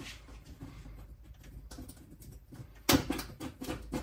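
Hands handling oven parts and wiring: a few faint ticks over a low hum, then from about three seconds in a busy run of light clicks and rustles.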